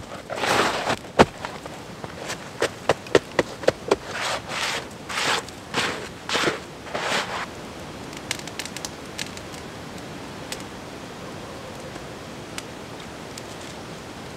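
Mittened hands scooping and packing snow: a run of uneven crunching swishes and crisp snaps for about seven seconds. After that comes only a steady hiss with a few sharp crackles from the campfire.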